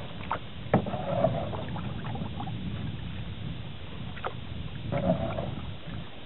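Canoe being paddled on calm water: two paddle strokes about four seconds apart, each a short splash and swirl of water, with a few light knocks between them.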